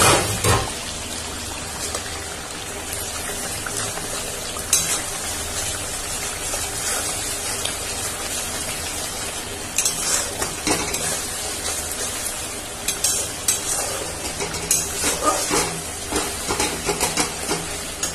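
Spice masala frying in hot oil in a metal kadai, sizzling steadily, while a metal spatula stirs it, scraping and knocking against the pan now and then and more often in the second half.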